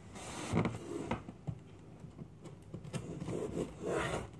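A cardboard shipping box being handled and cut open: scattered soft scrapes, creaks and small knocks of cardboard.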